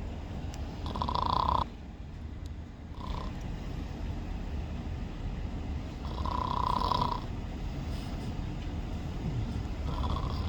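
Snoring: a steady low rumble of breathing, with a short higher-pitched note three times, about a second in, around six seconds in and near the end.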